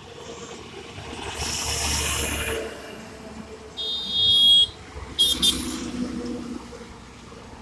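Highway traffic passing close by. A vehicle sweeps past with a rush of road noise, then a high-pitched horn sounds twice, once for about a second and once briefly. A loaded truck's engine drone goes by near the end.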